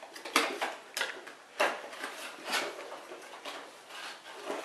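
A cardboard box and plastic packaging being handled and pulled open: irregular sharp clicks and crinkly rustles, the loudest about a second and a half in.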